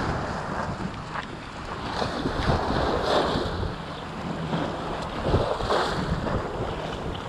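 Small sea waves washing and splashing over shoreline rocks in surges, with wind buffeting the microphone.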